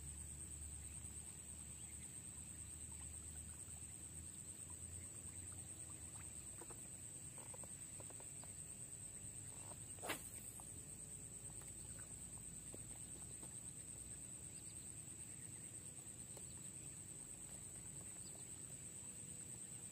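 A fishing rod being cast with a lure, heard as one short sharp swish-click about halfway through, over a faint steady high-pitched whine.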